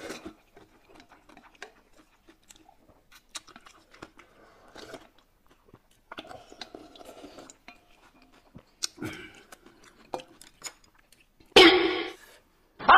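Eating sounds: chewing and slurping of noodle broth from a steel bowl, with small clicks of chopsticks against the bowls. Near the end comes one short, loud burst of sound.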